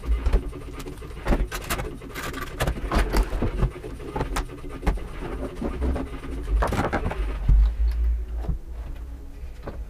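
Hand tools and plastic tool cases being gathered up and packed away on a workbench: irregular clicks, knocks and rattles. Near the end comes the handling of a car door panel.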